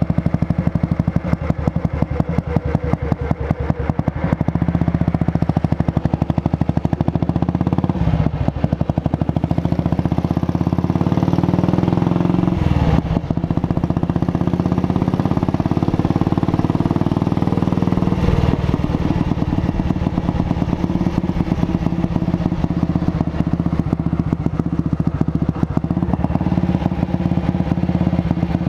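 Junak M10 motorcycle's single-cylinder four-stroke engine running, its exhaust beats dense and steady. The engine note changes briefly three times, about 8, 13 and 18 seconds in.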